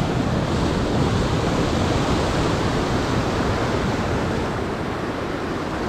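Sea surf breaking and washing over the rocks of a rocky shore: a steady rushing noise.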